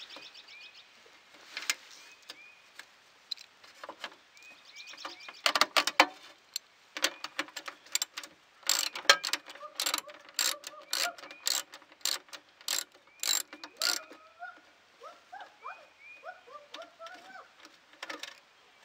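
Hand socket ratchet clicking in quick runs as bolts on a riding mower's engine shroud are worked loose, busiest in the middle stretch. Small birds chirp faintly in the background.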